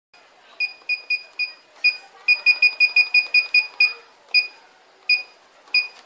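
A G6 alarm control panel's touch keypad gives a short, high beep at each key press as a PIN is keyed in: about seventeen beeps, some spaced out and a fast run of eight or so in the middle.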